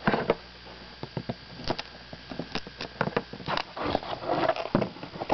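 Hands opening a sealed cardboard trading-card box: an irregular run of crackles, taps and rustles.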